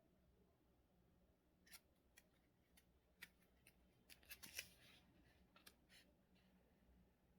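Faint, scattered light clicks and crinkles of paper and stickers being handled during paper-crafting, bunched in the middle seconds.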